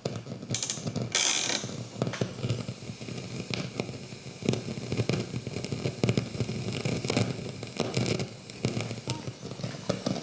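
Irregular crackling and clicking from a Pioneer Rondo 3000 receiver's faulty channel, with a short burst of hiss about a second in; scratchy output typical of a failing STK-type amplifier IC (AGH003).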